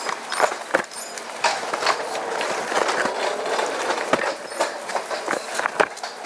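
Cardboard parcels being picked up and handled off a wire cage cart: a string of knocks, bumps and scrapes, over a faint steady hum.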